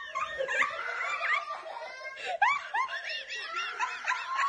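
People laughing in quick short bursts, with a young child screaming in the background.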